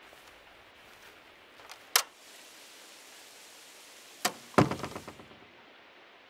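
A door opening and shutting over a steady faint hiss of rain: a latch clicks about two seconds in, the rain hiss grows louder and brighter while the door stands open, then the door shuts with a knock and a heavier thud with a brief rattle of the latch, and the louder rain sound cuts off.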